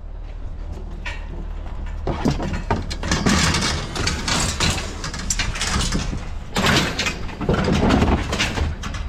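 Scrap metal scraping and clattering as it is loaded into the back of a vehicle, over the steady low hum of an idling engine. The handling starts about two seconds in.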